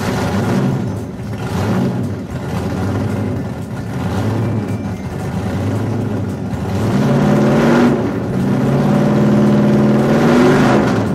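Motor vehicle engine sound revving continuously, its pitch climbing twice in the second half.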